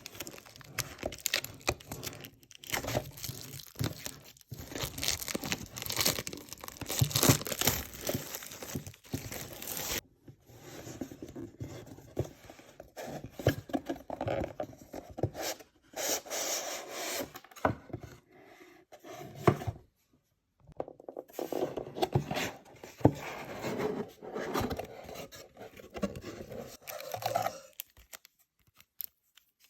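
Close-up tearing, rubbing and crinkling of Pokémon trading card packaging as the box and booster packs are ripped open and handled. It comes in irregular bursts broken by a few brief silent gaps.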